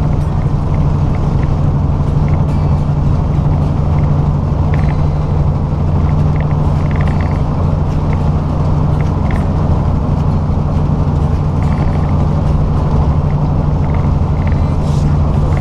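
Semi-truck's diesel engine running steadily at highway speed, heard inside the cab as a low, even drone with road noise. Scattered light ticks run through it.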